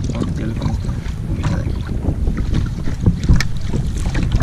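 Wind buffeting the microphone of a camera on a small kayak, with choppy water splashing and slapping against the hull in many quick sharp strokes.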